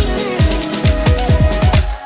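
Background electronic music with a beat: deep booming bass drum hits that drop in pitch, quick ticking percussion and a held melody line.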